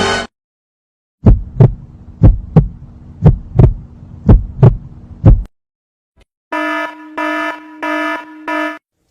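Heartbeat sound effect: low lub-dub double thumps about once a second over a faint steady hum, followed after a short pause by five quick electronic beeps.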